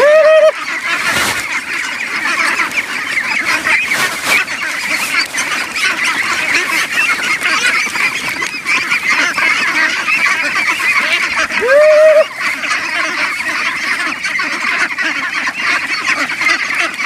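A large flock of young domestic ducks calling all at once at feeding time, a dense, continuous high chatter. Two louder single calls stand out, one at the start and one about twelve seconds in.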